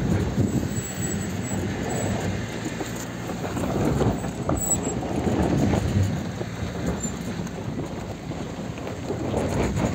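Suzuki Grand Vitara crawling over a rocky dirt track, heard from inside the car: tyres crunching over stones with a continuous low rumble and irregular clatter of the suspension and body.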